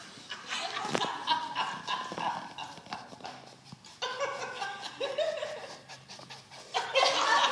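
A girl's voice performing grammelot: expressive gibberish noises with no real words, with gliding vocal calls about four seconds in and a louder burst of voice near the end.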